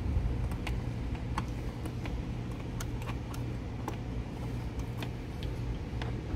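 Scattered light clicks and ticks of plastic water tubing and fittings being handled inside an RV's low-point-drain bay, over a steady low hum.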